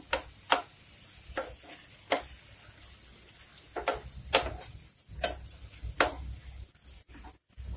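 Slotted metal spatula scraping and knocking against a non-stick frying pan while stirring chopped onions and tomatoes: about seven separate strokes at an uneven pace, with a pause in the middle.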